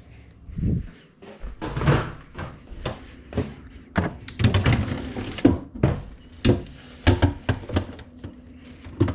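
Kitchen handling noises: an irregular string of sharp knocks and thunks, as meat and containers are moved around and put away.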